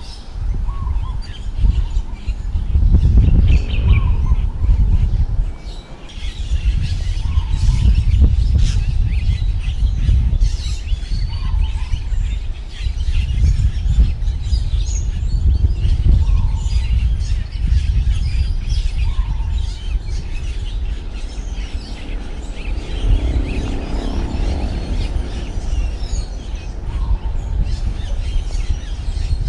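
Strong wind gusting, heavy low rumble buffeting the microphone and rising and falling in strength, easing briefly about six seconds in. Birds chirp throughout, and one bird repeats a short call every few seconds.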